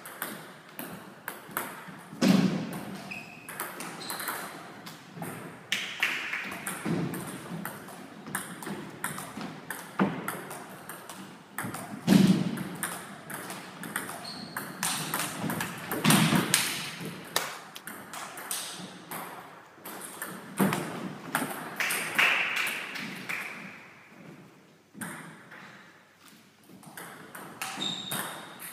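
Table tennis rallies: the ball clicking sharply and quickly back and forth off the bats and the table, in quick runs of hits broken by pauses between points, with a few louder, echoing hits every few seconds.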